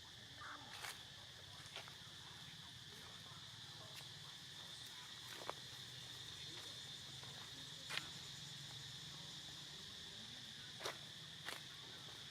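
A steady, faint high-pitched drone of insects, such as crickets, with a few short sharp clicks or taps scattered through it, the loudest about eight seconds in.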